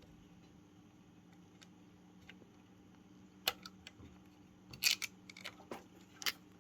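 Sharp clicks and clacks of small plastic and metal car-radio parts being handled and fitted during reassembly, over a faint low hum. There is one click about halfway through, a quick cluster a second later, and two more near the end.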